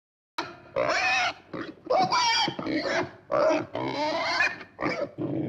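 Pig squealing and grunting in distress: a rapid run of short, high cries that starts suddenly about half a second in and keeps going.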